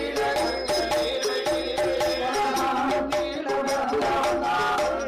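Villupattu (Tamil bow-song) music: a melody over percussion keeping a steady beat.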